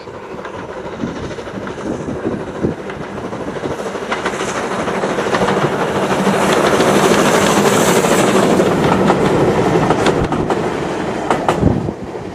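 Steam locomotive hauling a train of coaches past, growing louder as it approaches and loudest about six to ten seconds in. Wheels click over the rail joints, then the sound drops away as the last coaches go by.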